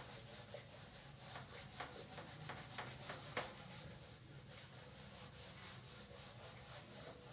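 Faint rubbing of a duster wiped back and forth across a whiteboard to erase marker writing, in short strokes about two or three a second that grow fainter after about four seconds.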